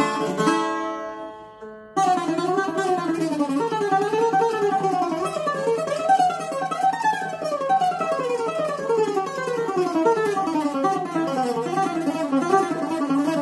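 Solo bouzouki playing: a ringing chord dies away over the first two seconds, then fast runs of picked notes climb and fall in quick succession.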